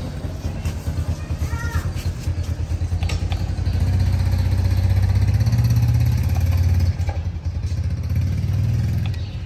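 A motor vehicle engine running with a steady low rumble, growing louder about a third of the way in and easing off after about seven seconds.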